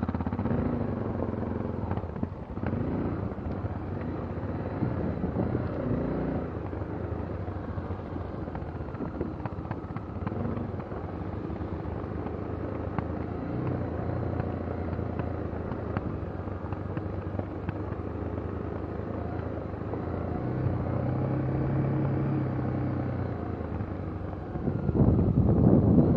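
An engine running steadily, its pitch shifting up and down every few seconds, louder near the end.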